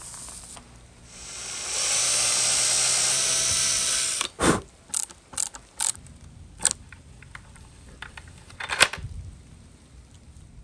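Cordless drill-driver running for a couple of seconds as it drives a screw into a small brass hinge, then a string of sharp clicks and knocks.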